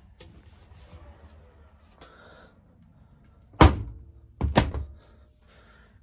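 Two loud thuds about a second apart, typical of a front-loading washing machine's door being pushed shut.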